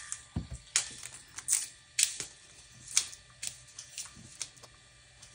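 HP Sprocket portable photo printer clicking as it starts a print job with fresh ZINK paper loaded. Irregular sharp clicks, a few a second, fade out about four and a half seconds in.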